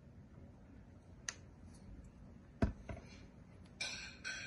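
Light clicks and knocks of hands and craft pieces against a glass tabletop while a popsicle-stick airplane is being glued, the sharpest knock a little past halfway. Near the end come three short, high-pitched sounds.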